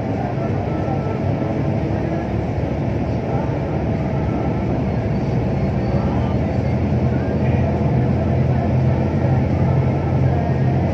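Highway traffic noise from moving alongside a light truck: a steady low engine hum with tyre and wind roar. The hum grows stronger in the second half as the truck's cab draws level.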